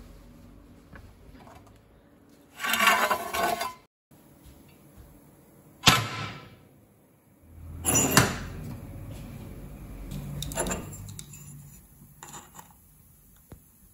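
Handling noises from a 4 mm titanium sheet: a scraping slide about three seconds in, a sharp knock near six seconds, then another scrape and knock about eight seconds in. Light clicks from a digital caliper near the end.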